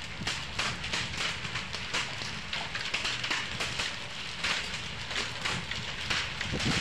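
Hailstorm: rain and hailstones striking the ground, a steady hiss with many sharp, irregular ticks of impacts.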